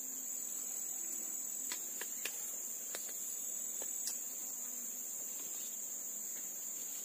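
Steady high-pitched chorus of insects, unbroken throughout, with a few faint clicks and taps in the first few seconds.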